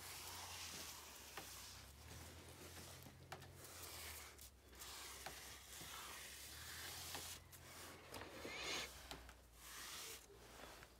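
Faint hiss of an aerosol spray paint can spraying onto a wall, in stretches broken by brief pauses between strokes.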